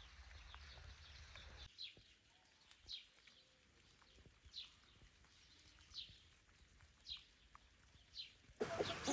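A small bird calls faintly over and over, one short falling note about every second and a half. Near the end, hens clucking cut in much louder.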